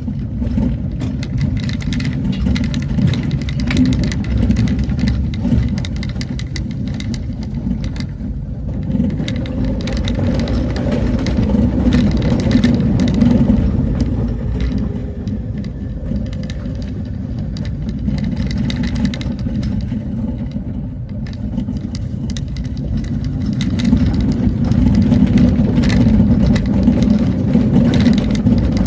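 A motor vehicle's engine running steadily while driving, with frequent knocks and rattles over the road.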